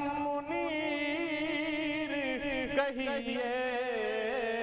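A man singing an Urdu naat solo, holding long notes that waver and bend in ornamented melisma. A short click about three seconds in.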